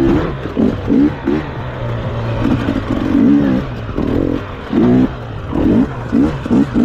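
Dirt bike engine revved in a series of short throttle bursts, its pitch rising and dropping back with each blip, with a longer pull about three seconds in and quicker blips near the end.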